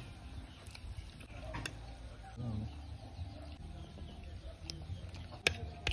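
Eating sounds: a fork clinking against a plate and bowl in a few sharp clicks, the loudest about five and a half seconds in, over a low rumble.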